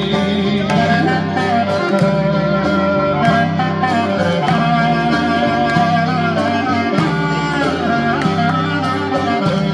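Instrumental break in a Greek folk dance song: a lead instrument plays a wavering melody over a steady, repeating bass beat, with no singing.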